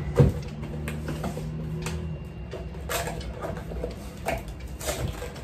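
A boxed set of glass tumblers being unpacked by hand. There is a sharp knock just after the start, then a few scattered clicks and knocks of glass and cardboard box being handled.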